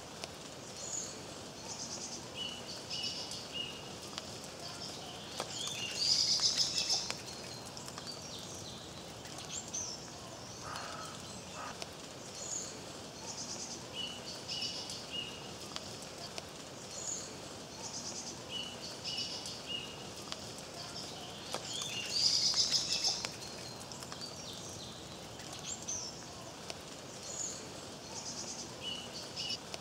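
Songbirds singing and calling in woodland: short high phrases repeat every few seconds, and twice there is a louder burst of rapid song. All of it sits over a steady hiss of rain.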